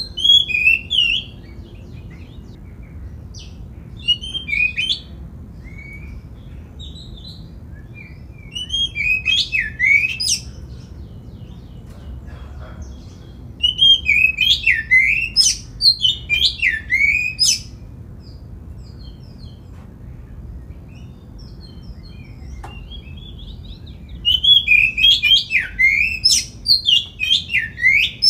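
Oriental magpie-robin (kacer) singing in loud bursts of rapid whistles and chirps with sweeping, falling notes, five bursts a few seconds apart, over a steady low background rumble.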